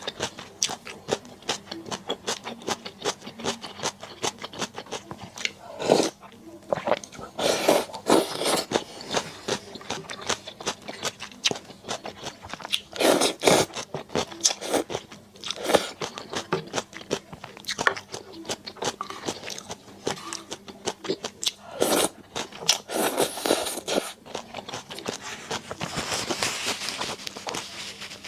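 A person eating close to the microphone: steady chewing and crunching with many small wet mouth clicks, broken by several louder, longer noisy bursts.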